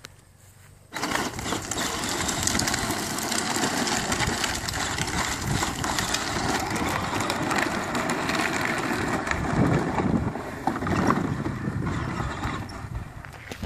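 Battery-powered ride-on toy ATV driving over a gravel driveway, its plastic wheels crunching and rattling on the stones, starting abruptly about a second in and easing off near the end.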